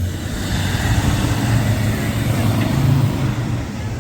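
Off-road 4x4 vehicle's engine running under load; its note climbs steadily for about three seconds, then drops back as the throttle eases.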